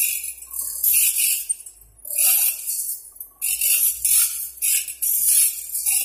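Automatic band saw blade sharpening machine, its grinding wheel grinding the teeth of a sawmill band saw blade. It comes as repeated harsh metallic bursts, each under a second, with short gaps between them as the blade is stepped on.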